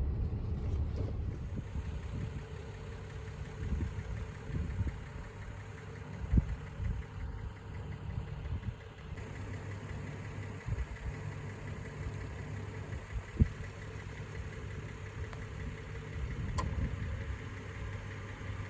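A vehicle being driven, heard from inside: a steady low rumble of engine and road noise, broken by two sharp knocks about six and thirteen seconds in.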